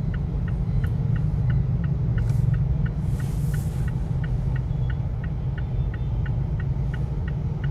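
Steady low rumble of a vehicle on the move, with an even ticking about three times a second, typical of a turn signal. A brief hiss comes about three seconds in.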